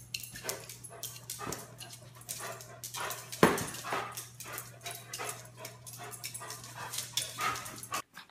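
A dog making small noises: a quick, irregular run of short clicky sounds, one louder than the rest about three and a half seconds in, over a steady low hum.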